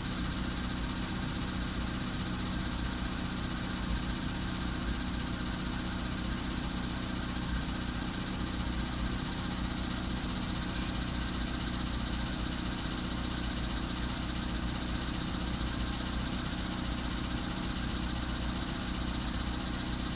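Volkswagen Polo Sedan engine idling steadily just after a cold start, with a light knock that is present but not strongly pronounced.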